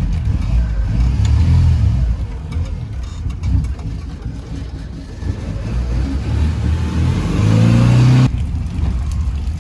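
Motor vehicle running on the road, a steady low rumble. About seven seconds in the engine note rises as it accelerates, then breaks off suddenly a second later.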